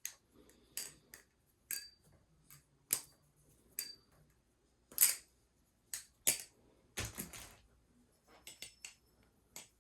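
Balisong (butterfly knife) being flipped: light metallic clicks and clacks of the handles and blade at irregular intervals, a few with a brief high ring.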